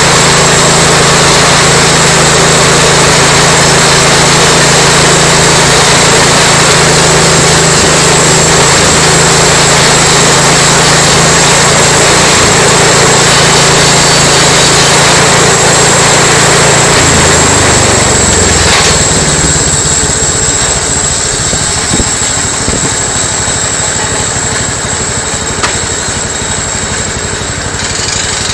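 The 12 HP engine of a homebuilt bandsaw mill running at a steady high speed with the band blade turning. About two-thirds of the way through, its pitch drops and it goes on running slower and quieter.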